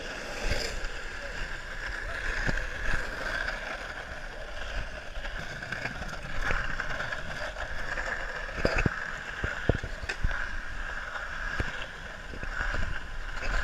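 Wheels rolling steadily over asphalt, heard muffled, with several sharp clicks as they cross cracks and seams in the pavement.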